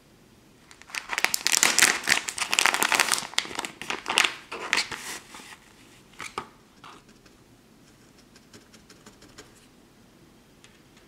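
A clear plastic packet of felting wool crinkling as white wool roving is handled and pulled apart, dense and crackly for several seconds, then dying away to a few faint light ticks.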